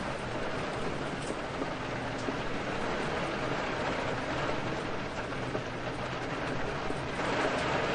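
Steady rain, an even dense hiss, swelling slightly near the end.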